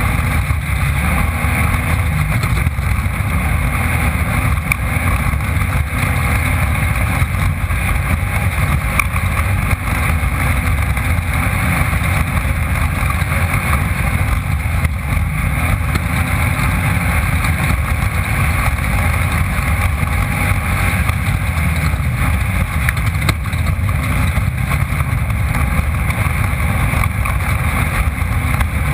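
Off-road race car at speed, heard from its onboard camera: a loud, steady mix of engine and chassis noise with a heavy low rumble and no clear changes in revs.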